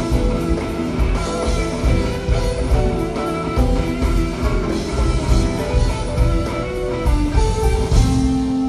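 Live rock band playing an instrumental jam: an electric guitar plays a melodic line of single notes over bass and drums.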